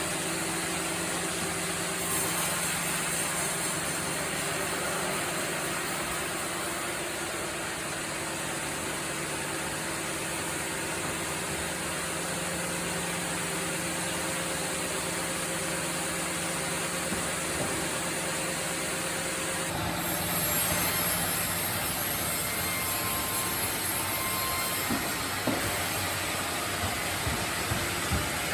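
Sawmill machinery running steadily, a continuous mechanical hum with hiss. The sound shifts about two-thirds of the way through, and a few short knocks come near the end.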